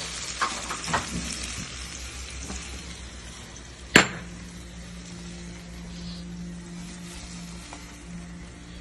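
Egg omelette frying in an oiled pan, a steady sizzle with a few light clinks of a utensil against the pan. A single sharp knock about four seconds in, after which a steady low hum comes in.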